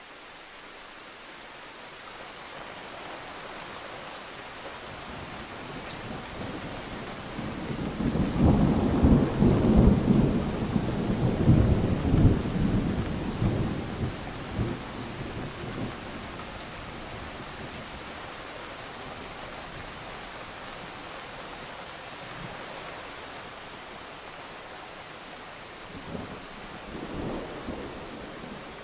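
Thunderstorm: steady rain with a long, loud, low rolling thunder rumble that builds about eight seconds in and fades out over the next several seconds. A fainter rumble comes near the end.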